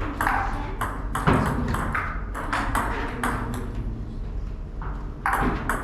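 Table tennis ball clicking sharply off paddles and table in a rally, a few hits a second, with a break of over a second near the end before the hits resume.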